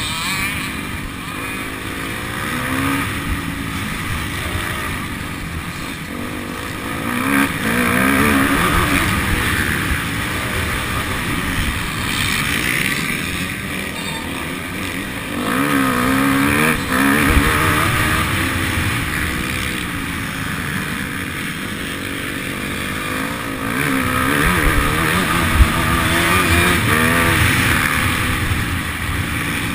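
Motocross bike engine, heard from a camera mounted on the bike, revving up and down over and over as the rider accelerates and backs off around the dirt track, with louder surges about a quarter, half and most of the way through.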